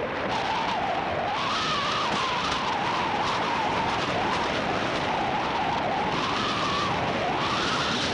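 Skis hissing and scraping over a hard-packed groomed piste during a downhill run, with a whistle that wavers up and down all the while.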